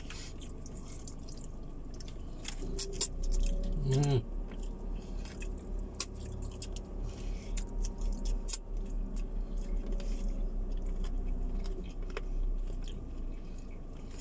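People chewing food, the chewing coming in a steady rhythm for most of the stretch, with scattered small clicks and taps from a plastic spoon and plastic takeaway container. A short hum from one of the eaters comes just before four seconds in.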